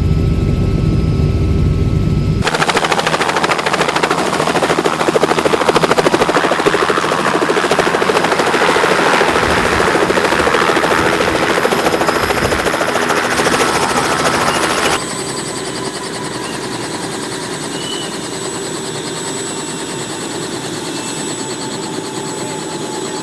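Helicopter running. A deep rumble gives way after about two seconds to a louder, rapid chopping from the rotor, which drops to a quieter steady noise about fifteen seconds in.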